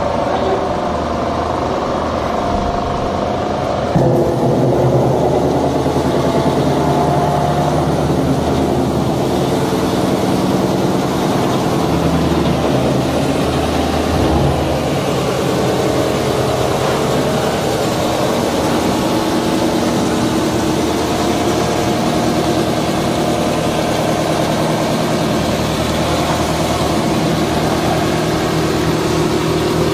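Electric-motor-driven wood shaving machine running under load, its cutter drum planing logs into animal-bedding shavings: a loud, steady machine noise that steps up about four seconds in.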